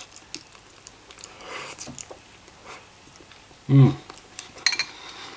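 A person chewing a mouthful of ramen noodles, with many small wet mouth clicks. About three-quarters of the way through comes one short, loud hum of the voice.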